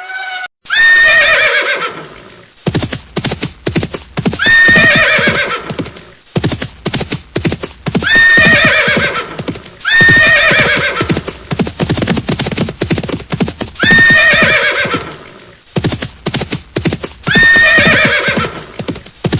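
Horse whinnying six times, each a loud descending neigh, over a fast run of hoofbeats clip-clopping from about three seconds in.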